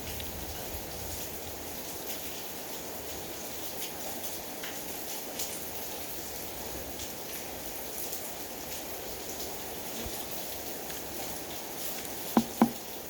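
Steady rain falling, an even hiss with scattered drop ticks. Near the end, two sharp knocks a fraction of a second apart stand out above it.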